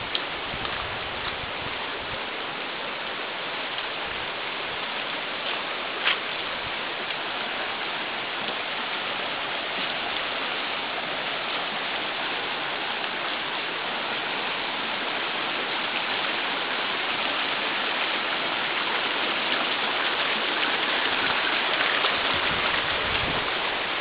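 The Virgin River flowing, a steady rush of water that grows a little louder in the last few seconds. A single sharp knock about six seconds in.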